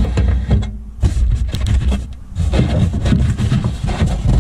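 A cardboard package scraping and sliding against the floor and walls of a metal mailbox as a hand grabs it and pulls it out, with short knocks from the handling over a heavy low rumble.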